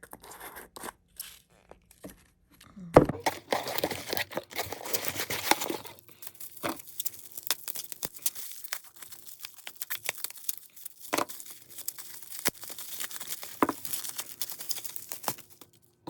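Packaging being unwrapped by hand: crinkling and tearing of wrapping, dense for a few seconds and then in scattered crackles. There is a sharp knock about three seconds in and a few clicks early on.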